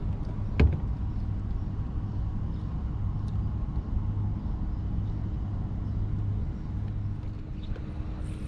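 Steady low motor hum over a rumble of wind and water, with one sharp knock about half a second in.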